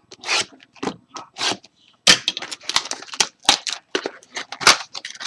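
Crinkling and tearing of trading-card packaging, foil pack wrappers and box wrap, as a box of baseball card packs is opened by hand. The sound comes in quick, irregular rustles and rips.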